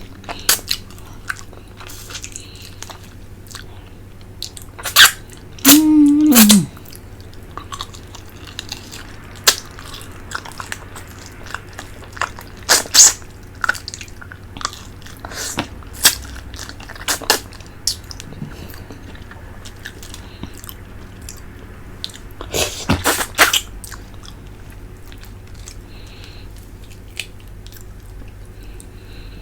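Close-miked eating of a boiled fish head: wet lip smacks, sucking and slurping sounds and chewing, in scattered loud bursts.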